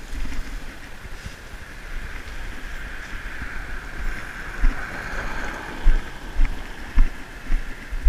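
Wind buffeting the microphone over a steady rush of river water, the rush swelling in the middle, with a few dull knocks in the second half.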